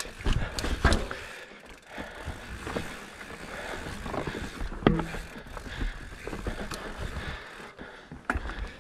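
Mountain bike rolling over a rough, muddy dirt double track: tyre noise on dirt with irregular clunks and rattles from the bike jolting over bumps, the loudest knock about five seconds in.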